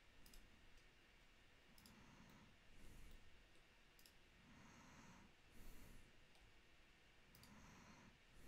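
Near silence: soft breathing close to the microphone and a few faint, sharp clicks scattered through.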